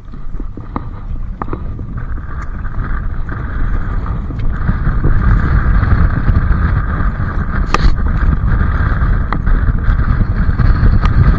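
Wind rumbling on the microphone over sea water washing against shoreline rocks, growing a little louder after about four seconds, with a few sharp clicks and knocks from the camera being handled.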